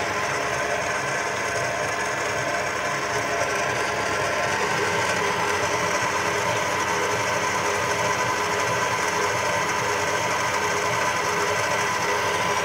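Old Kenwood Chef stand mixer running steadily at a raised speed, its motor and gearing making a loud, even mechanical whine as the attachment kneads bread dough in the bowl. The machine is described as very old and terribly noisy.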